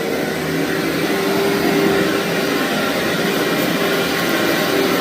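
Vacuum cleaner running steadily over a thick, fluffy carpet, its motor hum and suction noise at an even level.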